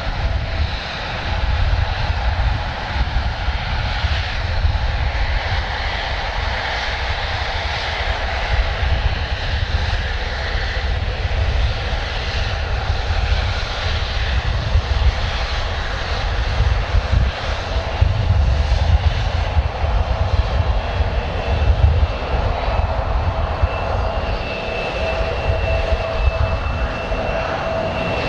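Jet airliner engines running as a steady, loud rumble and roar. A thin high whine comes in near the end.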